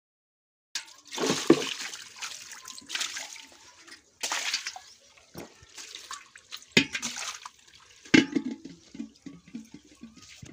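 Water splashing onto a wet floor around bare feet, in a series of separate splashes with short gaps between them.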